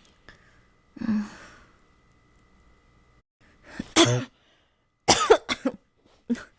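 A girl coughing from a cold: one cough about a second in, a louder, rasping one near four seconds, then a quick run of three or four coughs, and one more just before the end.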